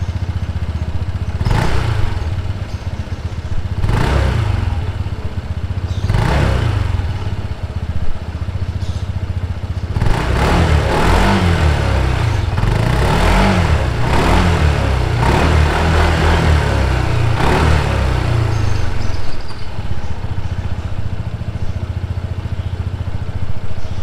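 Honda ADV 160 scooter's 157cc liquid-cooled four-stroke single-cylinder engine idling while parked. It is blipped three times about two, four and six seconds in, then revved up and down repeatedly from about ten to eighteen seconds in, before settling back to idle.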